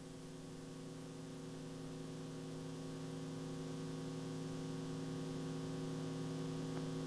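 Steady electrical mains hum, several low tones held together over faint hiss, slowly getting louder.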